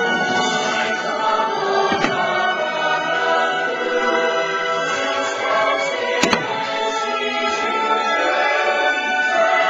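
Fireworks show soundtrack with a choir singing over orchestral music, played through outdoor park speakers. Two sharp firework bangs cut through it, one about two seconds in and a louder one about six seconds in.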